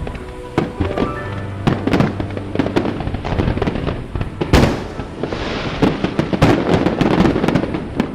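Fireworks display: aerial shells bursting in quick succession, with one big bang about four and a half seconds in followed by a dense crackling shower.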